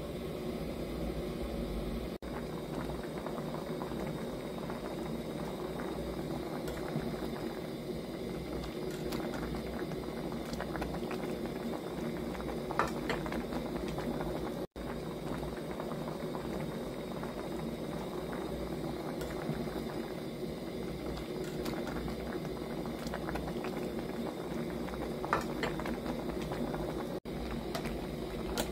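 Pot of kaeng liang, a Thai vegetable soup, boiling steadily, with a few faint pops from the bubbles.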